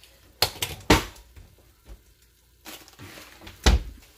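Off-camera kitchen handling noises: sharp knocks about half a second and one second in, and a louder one near the end, with a soft rustle shortly before it.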